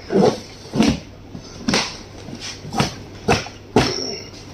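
A cardboard box being cut and opened with a knife: about six short, sudden tearing and scraping sounds as the cords and tape are cut and the flaps are pulled open.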